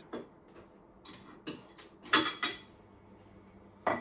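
Kitchen clatter: a string of knocks and clinks from a pan and utensils being handled, the loudest just after two seconds in and another sharp one near the end.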